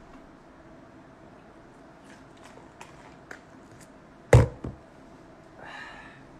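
Scattered light clicks and knocks of someone moving about and handling things, then a loud thump about four seconds in, quickly followed by a softer second one, and a brief rustle near the end.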